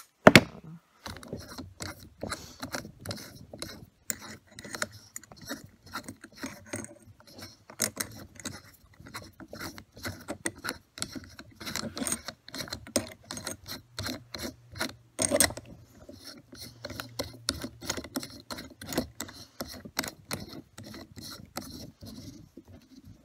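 Rapid, irregular light clicking and rattling of small hard parts being handled, with a sharp knock near the start.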